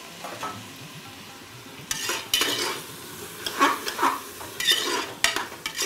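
A spoon stirring and scraping through vegetables and yogurt in an aluminium pressure cooker on the heat, with a faint sizzle underneath. A run of uneven scraping strokes starts about two seconds in.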